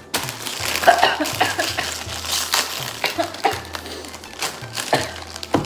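Plastic snack bag crinkling and crackling in irregular bursts as a hand rummages inside a Kit Kat bag.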